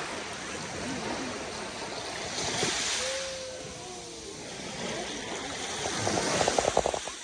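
Small waves breaking and washing up a sandy shore at the water's edge: a steady rush of surf, with a louder, choppier wash near the end.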